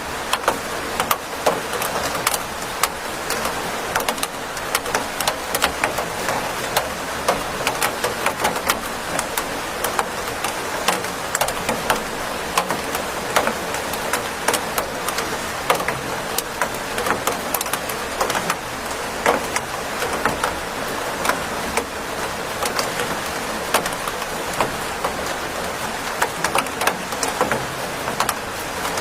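Steady rain falling, with many close, sharp drops pattering irregularly on a hard surface.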